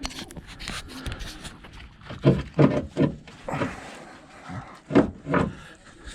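Metal knocks, clicks and scraping as a Chevrolet Silverado front CV axle shaft is wiggled and pushed to line up its splines. There are a few harder clunks about two and five seconds in.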